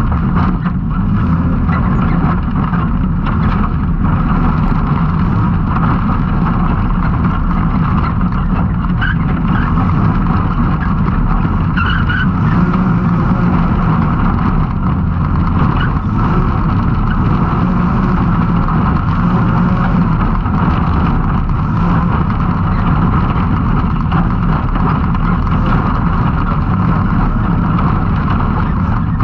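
Can-Am Maverick X3 side-by-side's turbocharged three-cylinder engine running hard at race pace, a loud, steady mix of engine and driving noise that never lets up.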